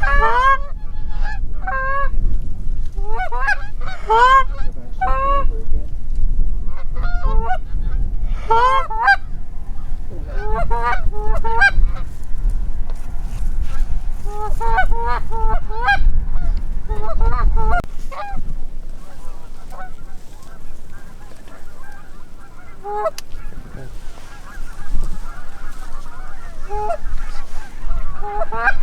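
Canada geese honking and clucking in repeated loud bursts over a low rumble, which stops about 18 seconds in. After that a fainter chorus of many honks continues.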